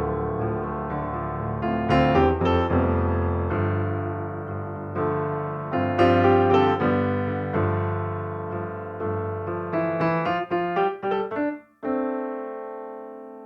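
Solo piano background music: notes and chords struck at an unhurried pace, a quick run of notes near the end, then a final chord left to ring and fade.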